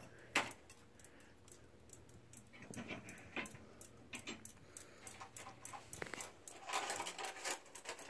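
King of Fans cane ceiling fan running on the floor, a faint steady low hum from the motor. Over it comes a stream of irregular light clicks and jingles, busiest toward the end.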